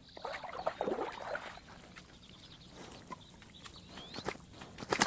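A dog splashing through shallow water, with irregular bursts of splashing and dripping.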